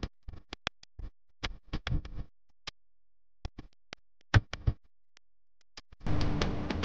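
Mostly silence broken by scattered short clicks and brief snatches of sound, as if the soundtrack drops out between clips; music comes back in about six seconds in.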